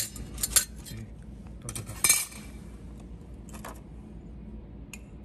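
A steel screw and a thin steel plate with welded-on nuts clinking and clattering against each other as they are handled on a metal workbench. The loudest clink comes about two seconds in, with a few lighter taps after it.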